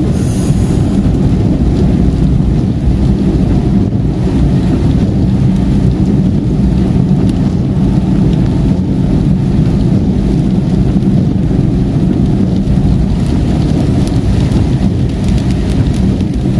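Steady low rumble of a car driving at highway speed, heard inside the cabin, with rain on the car and tyres running on the wet road.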